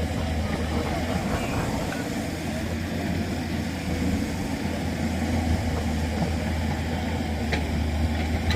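A heavy engine running steadily with a constant low hum.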